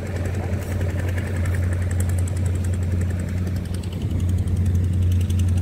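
An engine running steadily, a constant low hum with no change in pitch.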